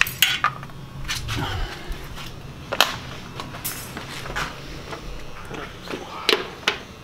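Handling noise: several scattered sharp clicks and knocks over a faint low steady hum.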